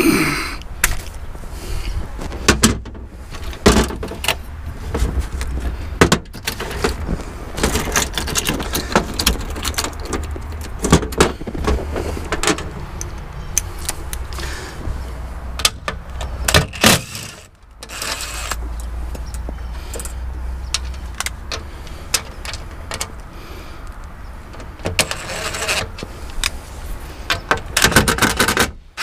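Bolts being taken out of a hybrid battery pack's metal cover with a ratchet and a cordless drill/driver: many clicks, metallic clinks and rattles of tools and loose bolts, over a steady low rumble.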